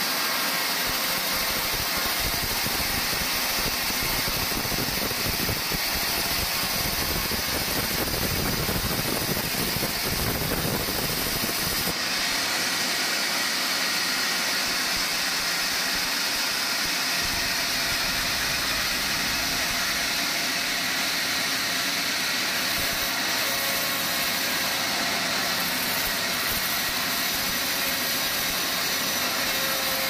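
Large band sawmill running, a steady loud machine noise from the saw's drive and blade, with an abrupt change in tone about twelve seconds in.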